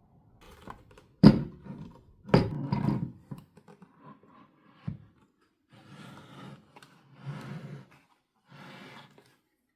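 Handling noises from unpacking a toy set: two sharp knocks about a second and two seconds in, a lighter click, then three short bursts of rustling or scraping.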